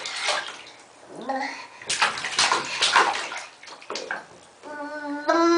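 A young child making wet, spluttering, gurgling noises with his mouth in several bursts, then holding a high, steady vocal tone near the end.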